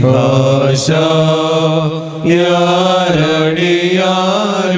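Malankara Orthodox liturgical chant sung in Malayalam: a hymn refrain drawn out in long held notes that glide slowly between pitches, with a steady lower note held beneath. A short hissed consonant cuts through about a second in.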